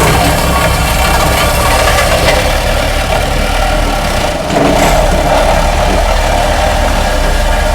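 Cat 226B skid steer's diesel engine running with its hydraulic vibratory roller attachment (a Case 252 roller front end) switched on and rolling, a steady machine sound with a fast low pulsing from the vibration. It dips briefly about halfway through.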